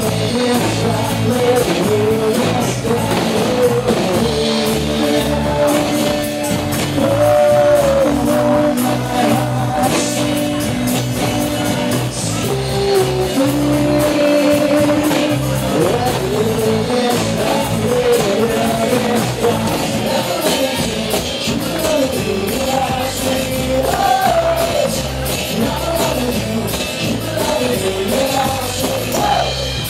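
Live band playing a song: a male singer with acoustic guitar, electric bass and drum kit.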